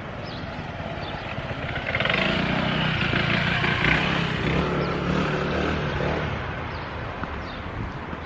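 A motor vehicle drives past on the street. Its engine sound swells about two seconds in and fades away over the next few seconds.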